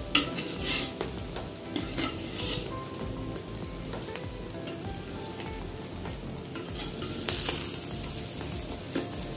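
Vegetable fried rice being stirred and turned in a large aluminium pot with a steel spatula over medium heat: repeated scraping strokes of metal against the pot, a few of them standing out sharply, over a low sizzle from the hot ghee and oil.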